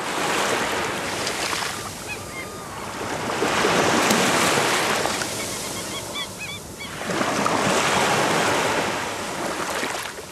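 Waves washing on the shore, swelling and ebbing about every three to four seconds. Faint high chirps come twice, about two seconds in and again around six seconds in.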